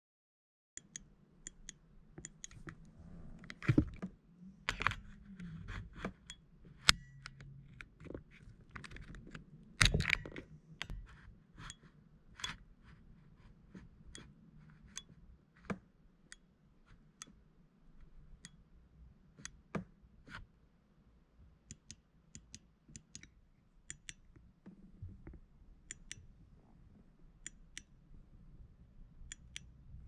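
Irregular small clicks and knocks of plastic and metal from an opened 2004 Honda Civic driver's seat belt buckle being handled, its latch and buckle-switch plunger pressed by hand. The two loudest knocks come about 4 and 10 seconds in.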